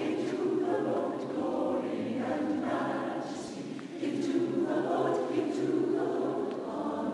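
Mixed choir of men and women singing in harmony, long sustained phrases with a brief break for breath about four seconds in.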